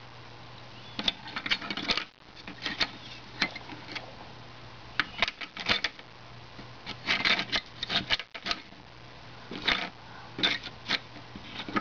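Light, irregular clicking and clatter of small carving tools being handled and set down, in short clusters.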